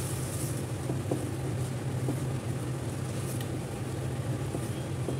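Spice masala frying in a kadhai while it is stirred with a silicone spatula: a soft sizzle and a few light scrapes against the pan, over a steady low hum. The masala is being fried with a splash of water until the oil separates.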